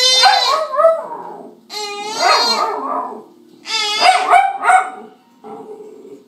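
Small long-haired dog giving three drawn-out barking calls in a row, each about a second long, with the pitch bending up and down.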